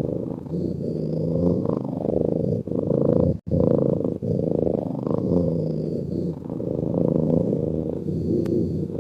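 Sleeping cat purring: a continuous low, rhythmic rumble, with a brief break about three and a half seconds in.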